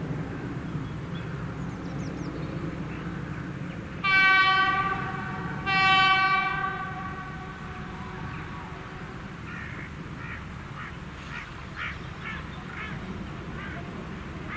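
Heritage diesel locomotive sounding its horn twice, about four seconds in: two blasts of about a second each with a short gap between. A low steady rumble runs underneath.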